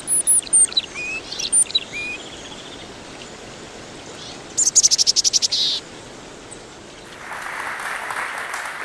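Birds chirping and whistling in quick high notes, then a fast run of about a dozen sharp clicking notes about halfway through. Near the end an audience starts applauding.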